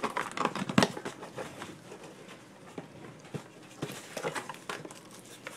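Packaging being handled: irregular rustles, scrapes and small knocks as items are pulled from a cardboard box, with one sharp knock just under a second in.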